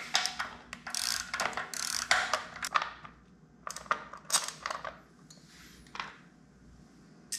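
Hand ratchet with a 9/16 socket clicking in quick runs as the nuts holding the motorcycle's air cleaner backing plate are spun off. The clicking stops about four and a half seconds in, followed by a brief soft handling sound.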